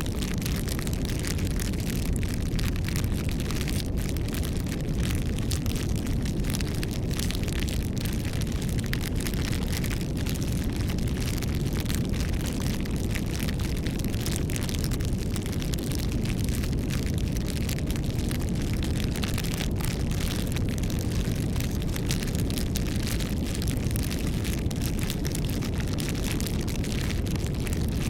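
Wood fire burning: a steady low rumble of flames with many small crackles from the burning wood.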